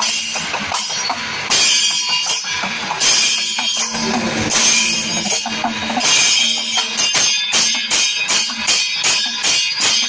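Kerala temple percussion ensemble playing loudly: drums and clashing ilathalam hand cymbals in a driving rhythm, the strokes coming faster in the last few seconds, with a held low tone under parts of it.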